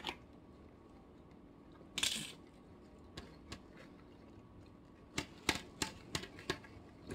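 Crunchy nacho tortilla chip being bitten and chewed close to the microphone: a short crunch about two seconds in, then a quick run of sharp crackling clicks near the end.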